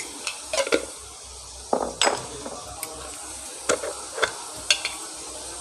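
A utensil scraping and clinking against an iron kadai, about eight sharp knocks spread through, over a steady low sizzle of onion-tomato masala frying in oil.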